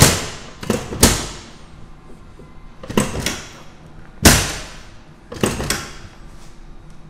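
A series of about eight sharp thumps, each fading out quickly, mostly coming in pairs a fraction of a second apart, the loudest near the start and about four seconds in.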